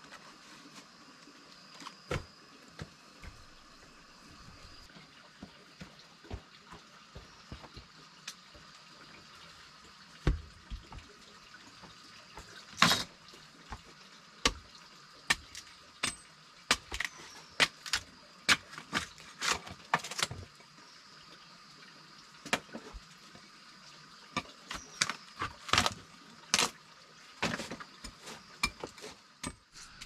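Hand tool striking the top of a wooden log stump, hollowing it out into a mortar: a run of sharp, irregular knocks. They are sparse at first and come about two a second in the second half, over a faint steady hiss.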